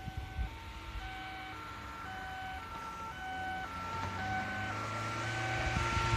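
Police two-tone siren, switching between a high and a low note about twice a second and growing steadily louder. A low vehicle rumble rises under it near the end.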